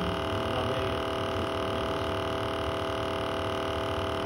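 Aquarium air pump running, a steady electric buzzing hum as it aerates the fish tank.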